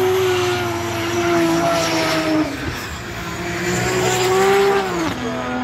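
Drift cars' engines held at high revs while sliding through a corner. The pitch holds, dips about two and a half seconds in, climbs again and drops near the end.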